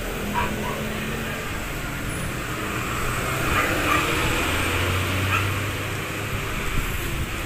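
Street traffic noise with a motor vehicle engine humming low from about halfway through. A few short high yelps come through near the start and in the middle.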